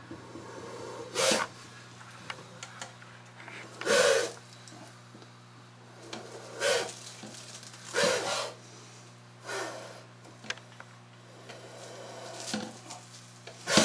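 Popcorn spitting cobra hissing defensively in short breathy bursts, about seven of them spaced one to three seconds apart.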